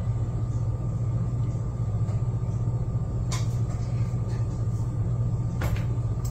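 Steady low hum of running machinery or electrical noise, with two faint clicks, one about halfway through and one near the end.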